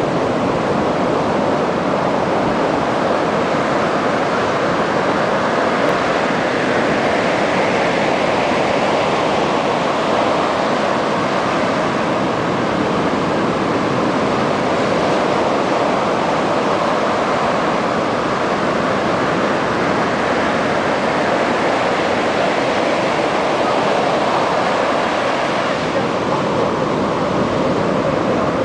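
Ocean surf breaking and washing up a sandy beach: a steady, even rush.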